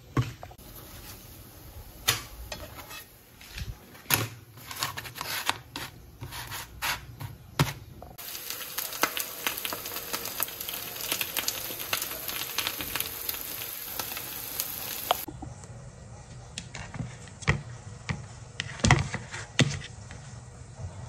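Kitchen cooking sounds: scattered clicks and knocks of utensils and dishes, then food sizzling and crackling in a hot frying pan for about seven seconds, which cuts off abruptly, then more knocks with a few louder thumps near the end.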